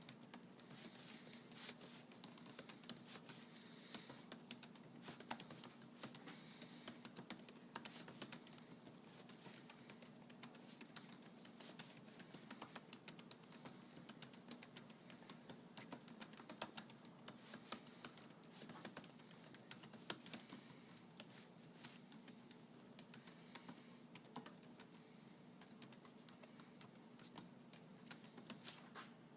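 Faint typing on a computer keyboard: irregular, rapid key clicks, a few louder than the rest, over a steady low hum.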